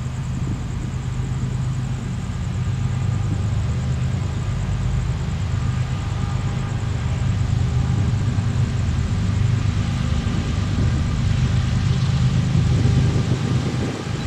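Engine running with a steady low hum and rumble, slowly growing louder.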